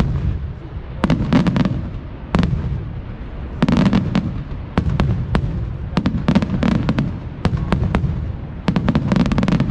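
Fireworks display: aerial shells bursting in quick, irregular volleys of sharp bangs, several a second in the densest clusters, over a continuous low rumble of booms.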